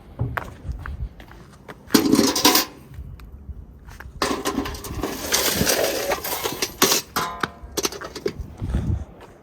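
Ash being scraped and shovelled out of a homemade fireplace with metal tools. There is a short scrape about two seconds in, a longer one in the middle, and light metallic knocks and clinks near the end.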